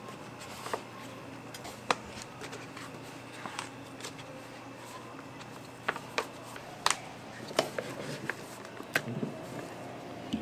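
Gloved hands handling a paper crepe sleeve: scattered sharp crinkles and clicks, more frequent in the second half, over a steady background hum.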